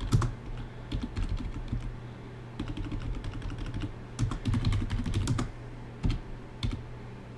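Computer keyboard typing: quick runs of keystrokes separated by short pauses.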